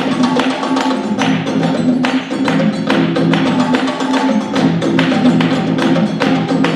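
Music with a steady percussion beat over sustained low pitched notes.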